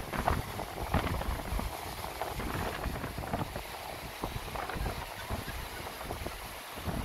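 Wind buffeting the microphone, an uneven low rumble, with faint scattered ticks over it.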